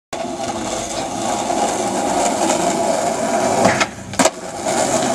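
Skateboard wheels rolling over asphalt with a steady rush. A little over three and a half seconds in comes the pop of the tail as the board is kicked into a flip trick, then a brief hush while it is in the air, then the sharp clack of the landing about half a second later.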